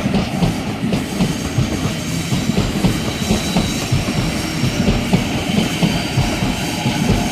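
Sydney Trains Waratah electric train moving along the platform, with a steady rumble, wheels clattering over the rail joints and a steady high whine.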